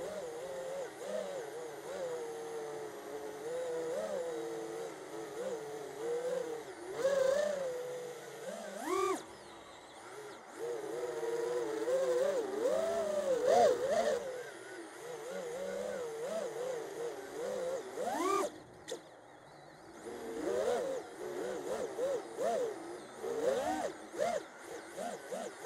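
The brushless motors and propellers of a Holybro Kopis II FPV racing quadcopter, whining in flight. The pitch swings up and down with the throttle, climbs sharply about 9 and 18 seconds in, and briefly drops away twice when the throttle is cut.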